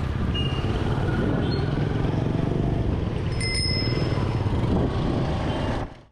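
Steady road and wind rumble from riding a bicycle through street traffic, with a short high ringing tone about three and a half seconds in. The sound fades out near the end.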